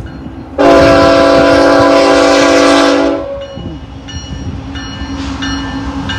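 BNSF freight locomotive's multi-chime air horn sounding one loud blast of about two and a half seconds, starting about half a second in. After the blast, the lead diesel locomotives' engines run as the train approaches.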